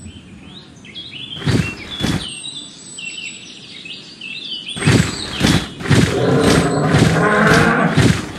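Stock sound-effect ambience of small birds chirping, broken by two heavy thuds about a second and a half in. About halfway through, a run of loud, evenly spaced thumps starts at roughly two a second, like heavy footsteps, with a louder rumbling animal-like sound under them.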